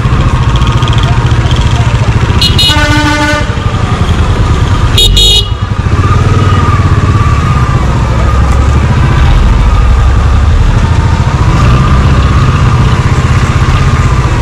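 Royal Enfield motorcycle engine running steadily in traffic, with a vehicle horn honking twice: a blast of about a second some two seconds in, and a short toot about five seconds in.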